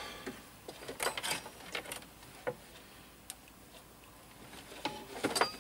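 Irregular clicks and light knocks of cables being plugged in and small electronic equipment being handled on a shelf, a few separate taps spread out with short gaps between them.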